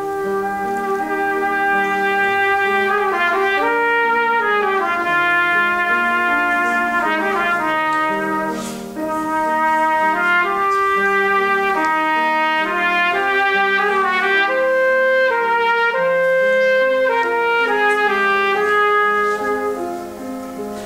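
Trumpet playing a melody in long held notes, accompanied by a grand piano, with short breaths between phrases about eight seconds in and near the end.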